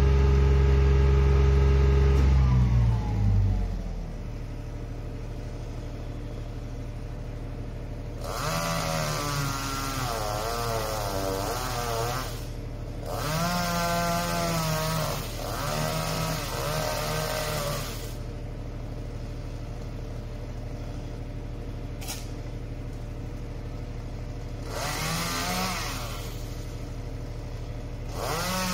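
A truck engine runs fast at first, then drops to a steady idle about three seconds in. Over the idling engine a chainsaw cuts in several bursts, its pitch wavering as it comes under load.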